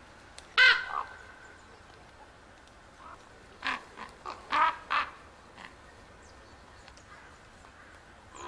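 Common ravens calling harshly: one loud call about half a second in, then a quick run of four or five calls around the middle.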